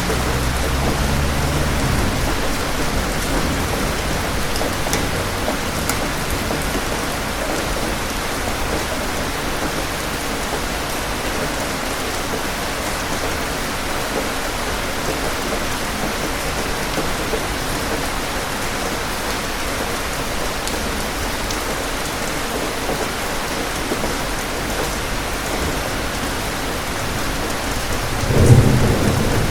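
Steady rain falling, with a low rumble of thunder dying away in the first two seconds and a louder thunderclap near the end.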